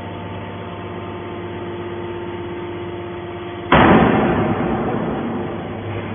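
Hydraulic metal baler running with a steady motor-and-pump hum, then about three and a half seconds in a sudden loud burst of noise that dies away over about two seconds.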